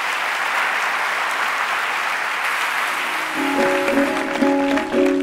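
A large audience applauding at the end of a talk. About three seconds in, an instrumental outro tune of plucked notes starts over the clapping.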